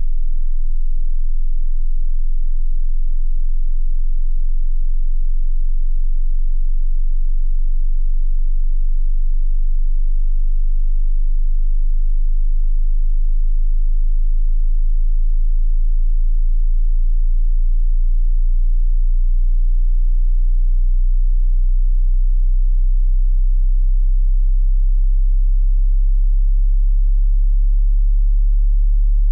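A continuous, very low-pitched pure sine-wave test tone at a steady level: a hearing-test frequency tone near the bottom of the audible range.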